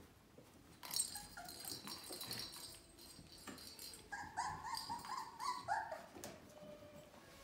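Labradoodle puppies whimpering: a quick run of short, high cries about four seconds in, lasting about two seconds, with some rustling before it.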